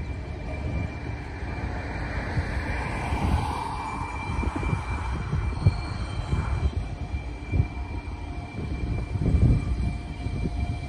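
Distant Norfolk Southern diesel freight locomotives working up the grade: a steady low rumble, with gusts of wind buffeting the microphone.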